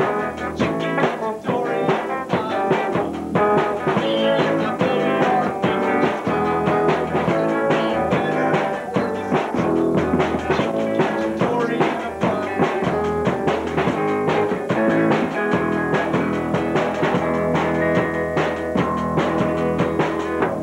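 Small rock band playing a song: electric guitar over a drum kit, loud and continuous.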